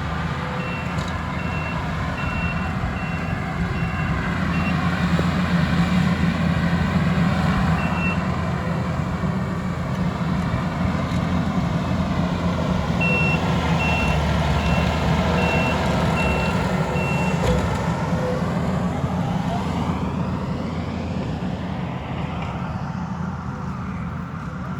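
Diesel engine of a heavy machine running, with its backup alarm beeping about twice a second for a few seconds at the start and again midway.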